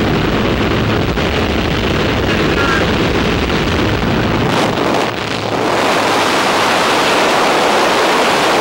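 Wind rushing through the open door of a small jump plane over the engine's hum. About halfway through the engine's low hum drops away, leaving a steady rush of wind on the microphone as the skydivers leave the plane.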